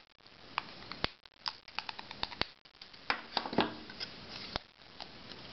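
Side cutters snipping the excess wire leads of freshly soldered resistors off the underside of a printed circuit board: a series of sharp, separate clicks.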